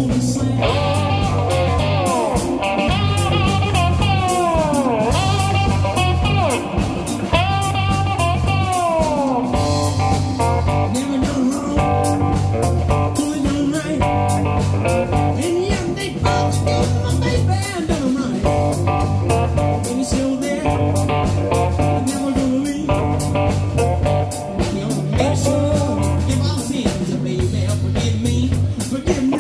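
Live blues band: a cigar box guitar played with a slide over electric bass and drum kit. The slide swoops down in pitch several times in the first ten seconds over a steady bass and drum groove.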